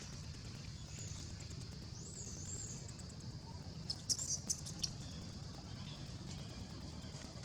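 Wild birds calling: a few high, arching whistled notes, then a quick burst of sharp chirps about four seconds in, over a steady low outdoor rumble.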